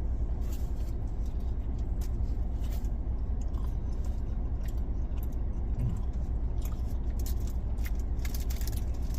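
Steady low rumble of a car engine idling, with scattered faint clicks and small crunches over it.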